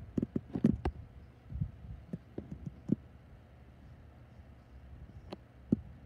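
Irregular low thumps and knocks from the phone being handled: a quick cluster in the first second, then single knocks every second or so and two more near the end, over a faint low hum.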